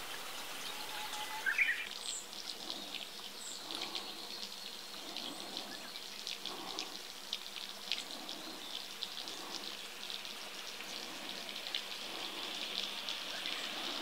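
Steady trickle of a shallow woodland stream, full of fine dripping ticks, with a few short, thin bird chirps in the first few seconds.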